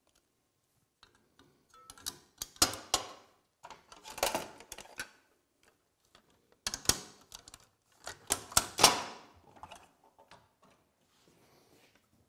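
Clicks and knocks of metal and plastic parts as the blade guard assembly is fitted back onto a Powermatic table saw, in several short clusters, the loudest about nine seconds in. The saw's motor is not running.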